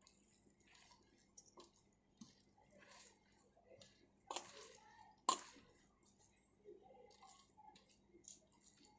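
A bare hand squeezing and tossing grated beetroot, cabbage and carrot in a steel bowl: soft, wet squishing and rustling, with two sharper clicks about four and five seconds in.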